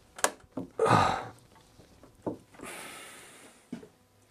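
Home Handyman trigger clamp being squeezed hard: several sharp clicks from the clamp's trigger mechanism, with a loud strained breath of effort about a second in and a long breath out near the end.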